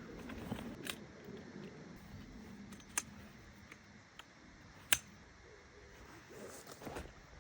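Camping gear being handled and set out inside a tent: soft rustling and shuffling with a few sharp clicks, the loudest about three and five seconds in.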